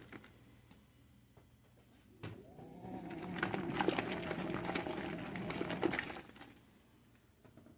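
Portable 15 L mini washing machine on its spin cycle: the spin motor comes on with a click about two seconds in, hums and whirs with a light rattle for about four seconds, then winds down.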